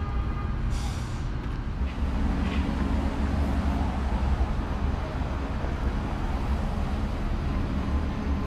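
City street traffic: cars driving past with a steady low rumble of engines and tyres, louder from about two seconds in.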